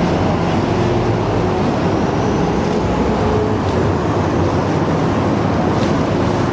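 Steady low rumble with a hiss over it: the ambient noise of walking through a covered shopping arcade.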